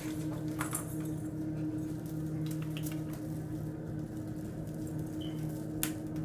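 Kittens scrambling in and out of a wicker basket on a towel: scattered light clicks, scratches and rustles of claws on wicker and cloth, over a steady low electrical hum.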